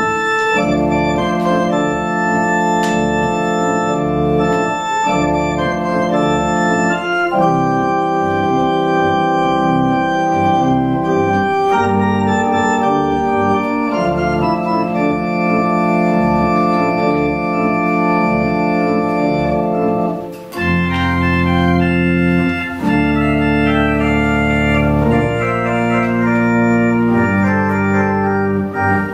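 Organ playing sustained full chords over a bass line, the chords changing every second or two. A brief break comes about two-thirds of the way through, after which the bass sits lower and stronger.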